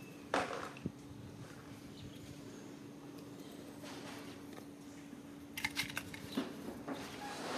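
Baby macaques wrestling on a tiled floor: a few light taps and scuffles, with a short run of sharp clicks about five and a half seconds in, over a steady low hum.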